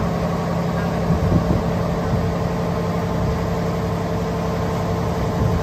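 A boat's engine running at a steady hum while underway, with water from the wake churning past the hull.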